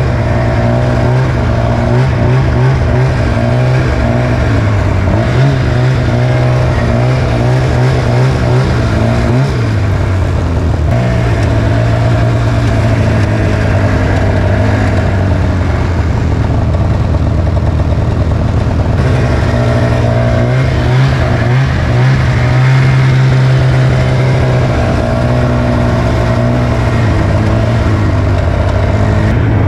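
Snowmobile engine running, heard from on board, its pitch rising and falling as the throttle is worked and eased off.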